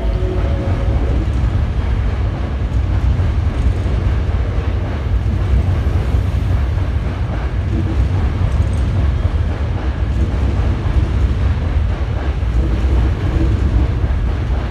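Hankyu 8000 series commuter train running out of the station, its wheels and motors giving a loud steady rumble as the cars pass close by. The rising whine of its GTO VVVF inverter fades out about a second in.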